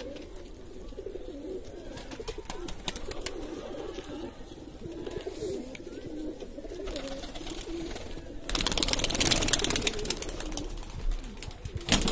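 A flock of domestic pigeons cooing steadily, with scattered small clicks. About eight seconds in, a loud rushing noise covers the cooing for around three seconds.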